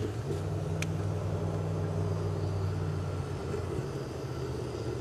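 A low, steady engine hum, a motor vehicle running nearby, that fades after about three seconds, with a sharp click just before one second in.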